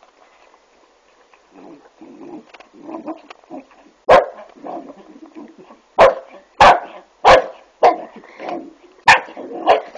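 Small dog barking, a series of about seven short, sharp barks starting about four seconds in, as it guards its bowl of milk from an approaching rooster.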